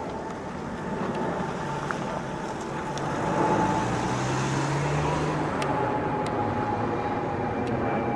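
Airbus A380 jet engines passing low overhead on approach: a steady jet rumble with a whine that drifts slightly lower in pitch, growing louder about halfway through.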